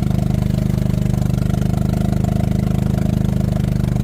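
Golf cart's small gasoline engine running at a steady speed.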